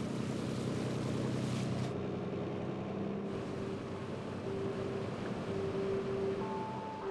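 A small motorboat's engine running steadily under way, with the rush of water along the hull. About two seconds in the rushing falls away, leaving a muffled engine drone with a steady, sustained tone over it.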